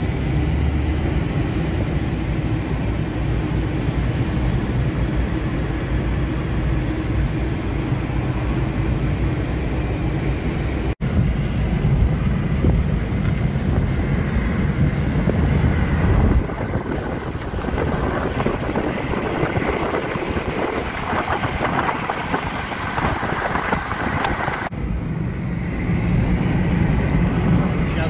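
Steady road, tyre and engine noise heard inside a moving car's cabin, with wind rushing past. The noise drops out for an instant about eleven seconds in and changes character abruptly twice more later on, where clips are joined.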